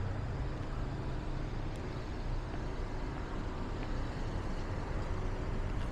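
City street traffic: a steady low rumble of cars passing on the road.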